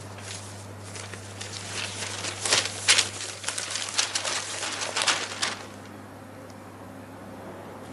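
Newspaper pages rustling and crinkling as they are handled. It is a few seconds of crisp, uneven crackles, loudest near the middle, over a steady low hum.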